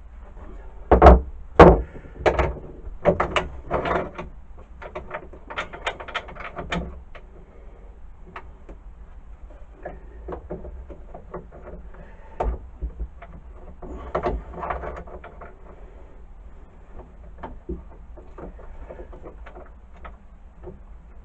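Irregular knocks and clatter of lathe-attachment parts and the wooden workpiece being handled and fitted, with two loud knocks about a second in, a busy run of clatter after them and another flurry about two thirds of the way through.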